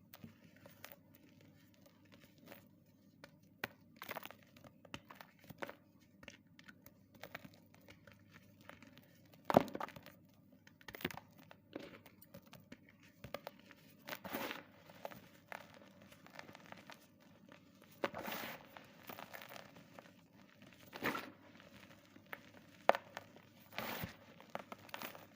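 Pieces of gym chalk being crushed: a run of irregular crunches and crumbling crackles, with sharp snaps about ten seconds in and again near the end.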